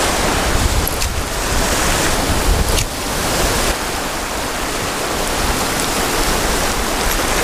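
Ocean surf washing against a rocky shore, a steady hiss, with wind buffeting the microphone.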